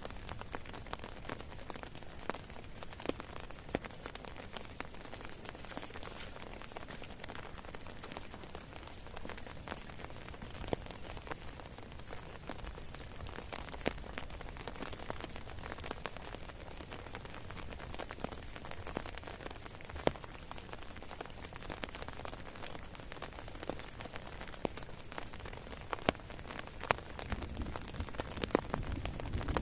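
Rain pattering, with many individual drops ticking sharply, over a steady high-pitched trill.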